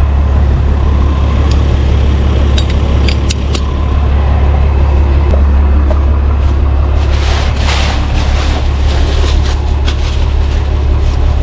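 A tow truck's engine running steadily close by, a deep even hum. A few light clicks come in the first seconds, and a spell of rustling, scraping noise follows about seven seconds in.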